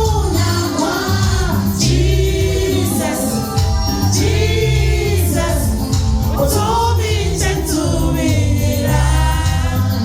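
Gospel song: several voices singing together over a band with a steady bass line.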